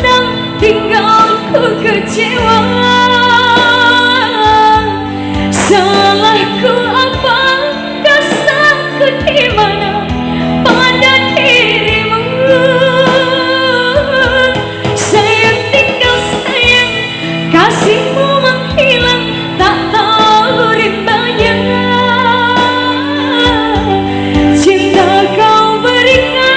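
A woman singing an Indonesian pop song over instrumental backing, holding long notes with vibrato.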